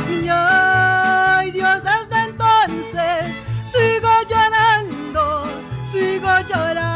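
A woman singing a mariachi song with a mariachi band accompanying her. She holds a long note about half a second in, then sings phrases with wide vibrato over the band.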